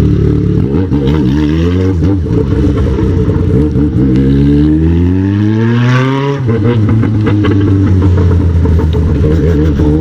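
Yamaha XJ6 inline-four through a straight-piped 4-into-1 exhaust, the motorcycle pulling away from low speed. The engine note climbs steadily for about two seconds and drops sharply with an upshift just past the middle, then runs steadily at a lower pitch.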